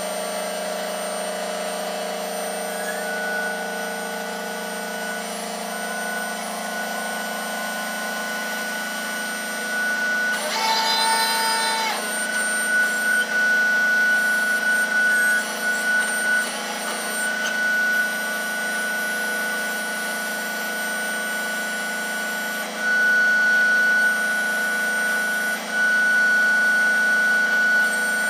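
Ship's deck machinery running with a steady drone of several held tones. About ten seconds in, a short horn-like tone sounds for about a second and a half.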